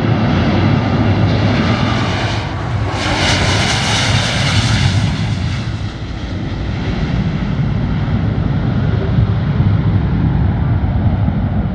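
Fixed-wing aircraft engine noise: a steady low rumble, with a louder, hiss-like rush that comes in about two and a half seconds in and fades by about six seconds.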